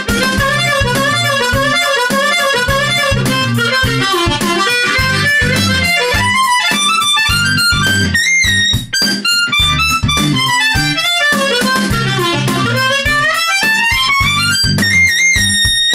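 A Kongsheng Solist all-metal ten-hole diatonic harmonica plays melodic phrases over a backing track, with pitch bends and overbends. The pitch slides down a few seconds in and climbs back up near the end.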